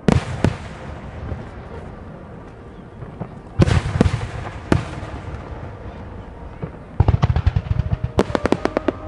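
Fireworks bursting in a starmine barrage. A loud burst at the start trails off in a long crackling hiss, two more bursts come about three and a half and four and a half seconds in, and a rapid volley of bangs fills the last two seconds.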